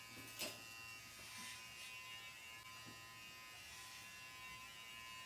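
GLAKER cordless hair clippers with a number 1 guard running with a faint, steady electric buzz as they cut hair smoothly without catching. A brief louder noise comes about half a second in.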